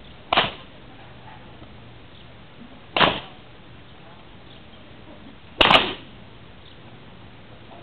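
Hungarian karikás whip cracked three times, about two and a half seconds apart, each a single sharp crack; the last is a quick double crack.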